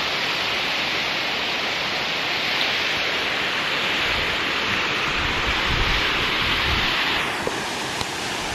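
Waterfall rushing, a steady hiss, with wind gusting on the microphone between about four and seven seconds in. The hiss softens slightly near the end.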